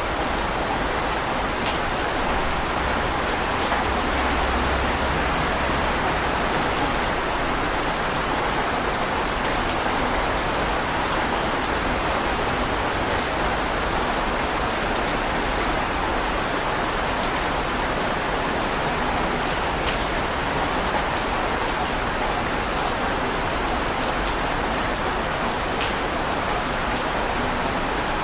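Heavy rain falling steadily, a dense even hiss with now and then a sharper single drop ticking.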